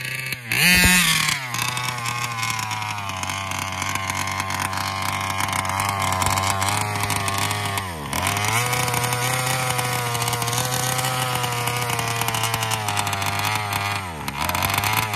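Meyer-ported Rovan 32cc two-stroke RC engine with a Taylor RC side pipe and Roostertail 990 carburettor: a brief rev about half a second in, then running steadily, its pitch sagging and picking back up about eight seconds in and again near the end. The throttle is misbehaving, which the owner suspects is the servo getting ready to fail.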